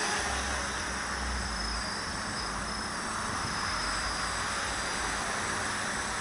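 Electric lift motors and propellers of a small homemade VTOL model aircraft hovering overhead, a steady whirring buzz with a faint high whine.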